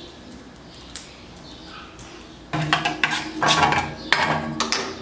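Aluminium pots and a metal mug knocking and clattering in a kitchen sink as they are handled. The clatter starts about halfway through, after a quieter stretch with a few faint clicks.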